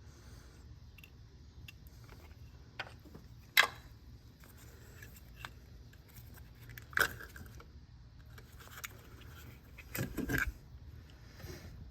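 Hand tools clicking and knocking against metal and plastic parts, in a few separate sharp clicks. The loudest click comes about three and a half seconds in, and there is a short burst of clatter near the end.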